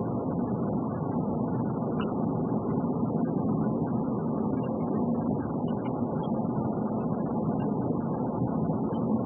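Steady road and engine noise inside a car cruising at highway speed, an even low rumble without changes.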